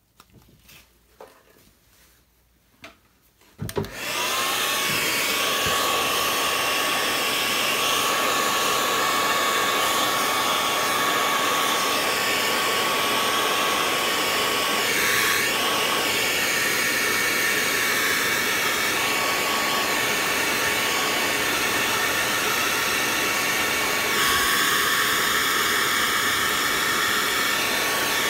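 Hair dryer switched on about four seconds in, then blowing steadily: a loud rush of air with a steady thin whine over it.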